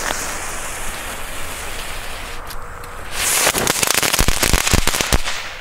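A crackling-ball firework (Komet 'Mystery Balls' Knisterkugel): its fuse hisses for about three seconds, then the ball goes off in a quick run of loud crackling cracks lasting about two seconds.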